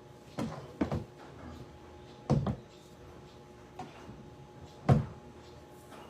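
Five or six dull thumps at irregular intervals, each short and sudden, over a faint steady hum.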